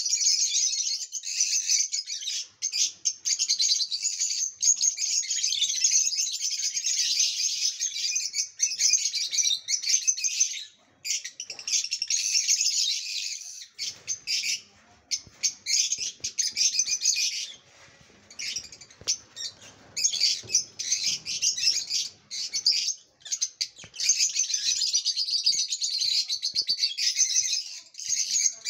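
A group of lovebirds chattering in a dense, continuous run of rapid, high-pitched chirps, broken by a few brief lulls.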